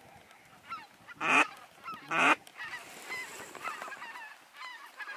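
Geese honking: two loud short honks about a second apart, over the steady chatter of many more geese calling.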